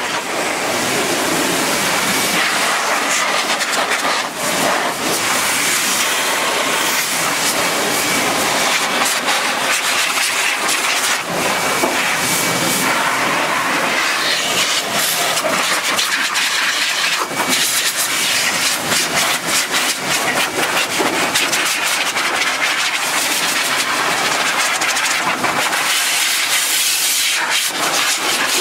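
Tornador compressed-air cleaning gun spraying cleaner over an engine: a loud, steady hiss with a fast rattle running through it and a few brief dips.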